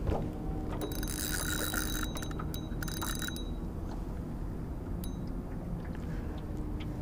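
Spinning reel's mechanism whirring with a metallic ring in two short spells, about a second in and again about three seconds in, over a low steady rumble.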